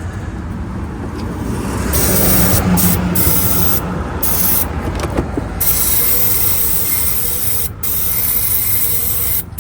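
Aerosol can of engine starting fluid spraying into an engine's air intake: a run of loud hisses with short breaks between them, the longest lasting about four seconds near the end. The spray is a test for a no-start: if the engine fires on starting fluid, the fault lies in fuel delivery.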